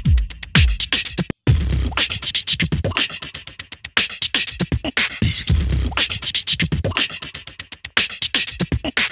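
Background music: an electronic hip-hop style beat with deep bass hits that drop in pitch and fast, sharp percussion, briefly cutting out about a second and a half in.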